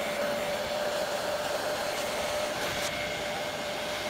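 Electric heat gun running on its high setting, blowing hot air: a steady rush of air with the even whine of its fan motor.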